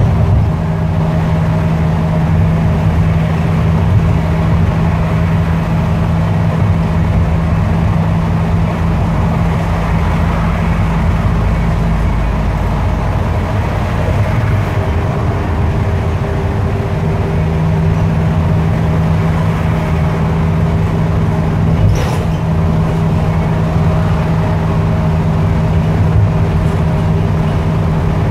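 Bus engine and road noise heard from inside the cabin while cruising on a highway: a steady low drone with a hum that drops away for a few seconds midway. A single sharp click sounds about three-quarters of the way through.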